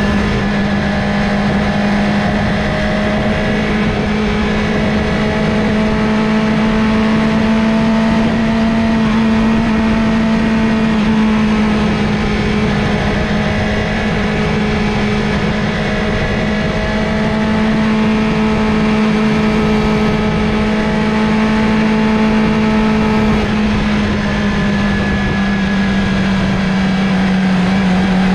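Motorcycle engine running at a steady cruising speed, its note holding nearly constant with only slight rises and falls in pitch.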